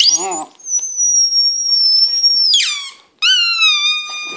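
Rubber squeaky toy squeaking in two long notes: the first very high and about two seconds long, dropping away at its end, the second lower and steady. Right at the start there is a brief wavering puppy howl.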